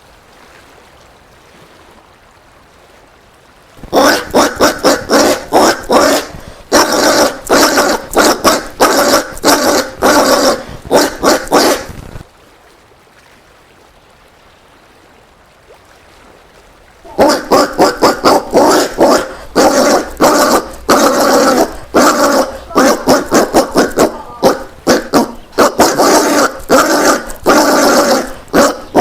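Collared peccary (caititu) calling in a rapid series of short, repeated calls, two or three a second. The calls come in two bouts, the first starting about four seconds in and stopping around twelve seconds, the second starting around seventeen seconds and still going at the end.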